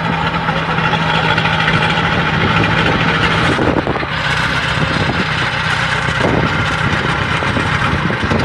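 Combine harvester's diesel engine and threshing machinery running steadily close by; the engine note drops slightly about three and a half seconds in.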